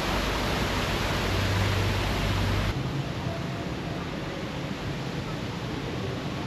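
Steady rushing of a waterfall splashing into a rocky pool, with a low rumble underneath. About three seconds in the sound changes abruptly to a lighter, steady hiss.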